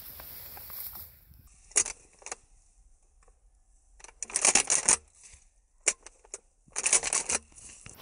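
Metallic clicking and rattling from a shotgun's action being worked: two sharp clicks a couple of seconds in, then two longer rattling bursts about half a second long, near the middle and near the end, as the spent-shell-free misfired rounds are ejected after the gun fails to fire, which the hunters put down to a bad firing pin.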